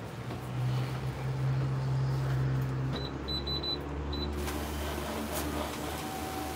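Low steady hum of a shop interior, with a quick run of about six short, high electronic beeps about three seconds in.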